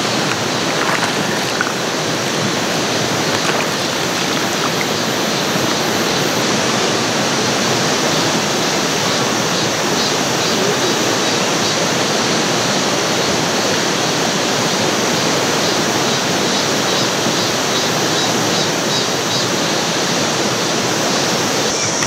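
A rocky mountain stream flowing, a steady rush of water over stones.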